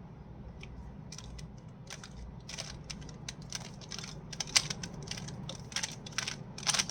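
Plastic Rubik's cube being turned by hand: irregular quick clicks and clacks of its layers rotating, a few at first and then a rapid run from about a second in.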